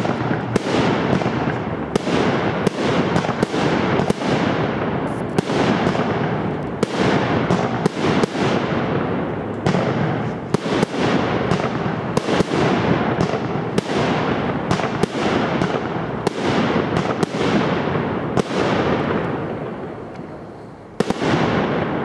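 Aerial fireworks display: a rapid, dense run of shell bursts, bang after bang with echoing rumble between them. The bangs thin out and fade about three-quarters of the way through, then one last bang comes near the end.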